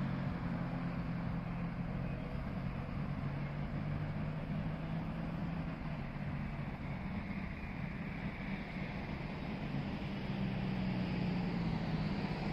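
Steady outdoor background of a running engine, a low even hum under a wash of noise, like nearby motor traffic.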